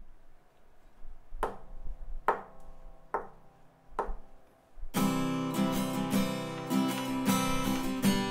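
Four evenly spaced taps, a little under a second apart, then a steel-string acoustic guitar comes in about five seconds in, picked with the fingers in a steady sixteenth-note accompaniment pattern.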